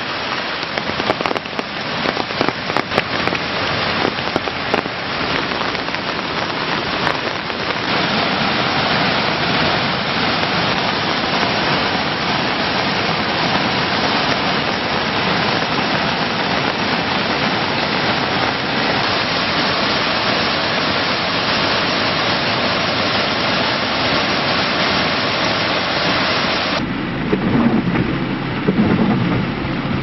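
Heavy rain falling with a crackle of close drop hits, then from about eight seconds in a steady, dense rush of water from a waterfall running brown and swollen in flood after heavy rain. Near the end the rush turns duller and lower.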